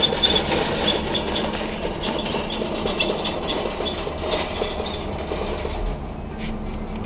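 A motor vehicle's engine running steadily, with light metallic rattling and clinking over the hum.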